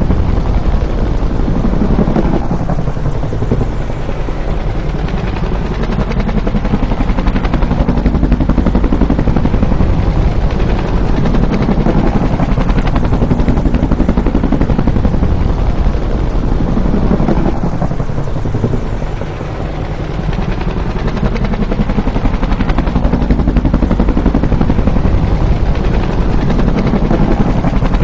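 Bell UH-1 "Huey" helicopter flying by, its two-bladed main rotor beating in a fast, loud, continuous chop. The pitch of the rotor and engine noise slides up and down as the helicopter approaches and passes.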